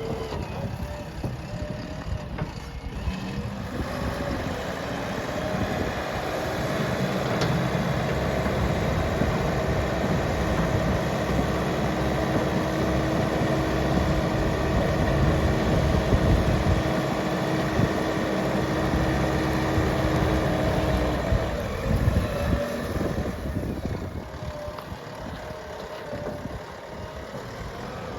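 Diesel engine of a JCB 3DX backhoe loader running under working load. It grows louder about five seconds in, holds a steady hum through the middle, and eases back a few seconds before the end.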